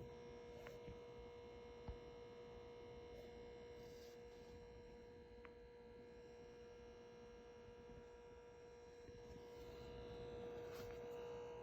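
Faint, steady buzzing hum from a Tesla Model Y's center speaker: one constant tone with a row of higher overtones, swelling slightly near the end. The buzz is a fault.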